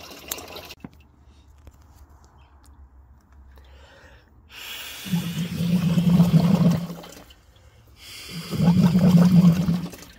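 Engine coolant gushing out of the BMW E38 740iL's engine block through the disconnected alternator coolant hose, a steady trickle at first, then two loud rushing surges, about five and eight seconds in.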